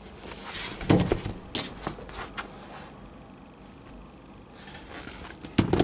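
Handling noise from a pair of sneakers being moved by hand: rustling, with a few dull thumps about a second in and again near the end.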